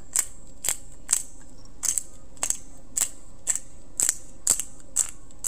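Handheld pepper mill being twisted, grinding black peppercorns: a steady run of short clicks, about two a second.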